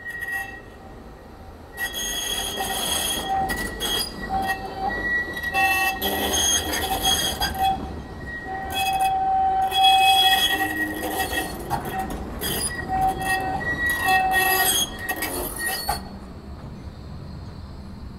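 Blackpool Flexity 2 tram rounding curved track, its wheels squealing in high tones that come and go. The squeal starts about two seconds in and dies away a couple of seconds before the end.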